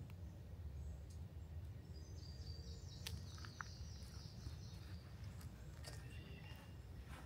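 A songbird singing a high, broken twittering phrase for a few seconds near the middle, over a low steady rumble. A few soft crackles of footsteps on the forest floor.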